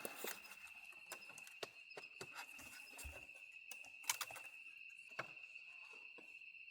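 Insects, likely crickets, singing a steady high drone, with scattered sharp clicks and taps over it; the loudest tap comes about four seconds in.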